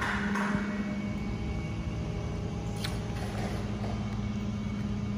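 Steady low mechanical hum, with one short click about three seconds in.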